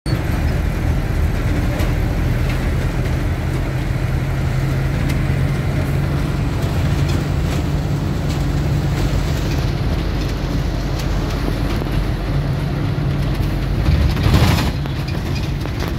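Steady engine drone and road rumble heard from inside a moving bus, with a low engine hum that fades for a few seconds and then comes back. A short, louder rushing noise about fourteen seconds in.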